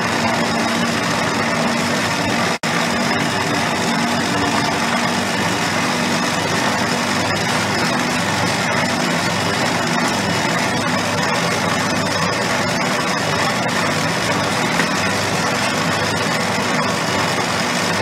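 Electric stand mixer running steadily at low speed, its motor humming and whisk churning cake batter while flour is spooned in a little at a time. The sound drops out for an instant about two and a half seconds in.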